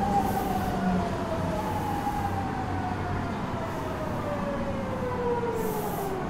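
Fukuoka City Subway Series 2000 train heard from inside the car: the Hitachi GTO-VVVF inverter and traction motors give off a whine that slides steadily down in pitch, stepping back up to a higher tone and falling again, over a steady rumble of running gear. The falling pitch marks the train slowing under electric braking. A brief hiss comes near the end.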